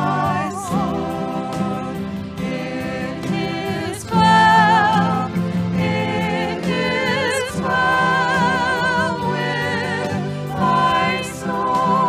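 Worship music: sustained sung notes with a wide vibrato over a steady instrumental accompaniment, the singing getting louder about four seconds in.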